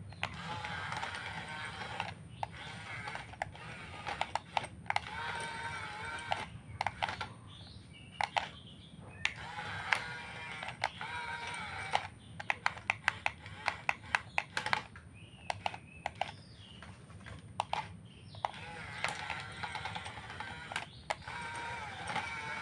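Small electric motors of radio-controlled excavator and bulldozer models whining in spurts of one to two seconds, with rapid clicking and ticking from the working machines throughout.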